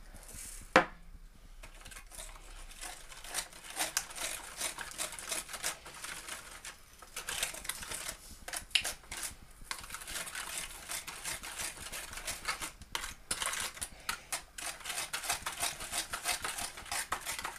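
A metal spoon stirring and scraping a butter-and-sugar mixture in an aluminium foil tray: many quick scrapes and taps against the foil. One sharp knock about a second in.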